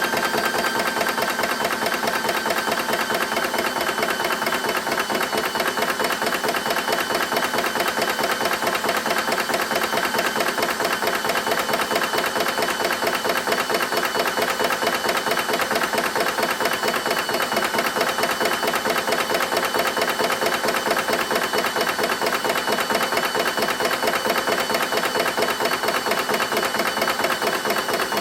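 EDgunWest Rover Mini direct-fill PCP air compressor running steadily, its piston beating rapidly and evenly with a constant whine over it.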